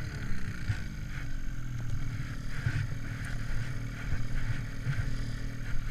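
Snowmobile engine idling steadily, with scattered short scrapes and crunches of gloved hands digging powder snow away from the stuck sled.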